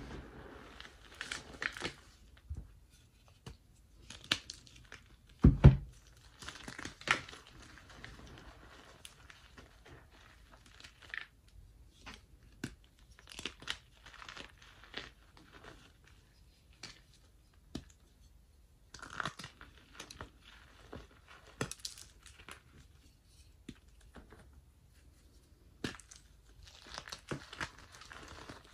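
Hands crushing and crumbling blocks of gym chalk into loose chalk powder in a metal tray: soft crunching and crumbly crackles that come in bursts with short pauses between them. One louder thump about five and a half seconds in.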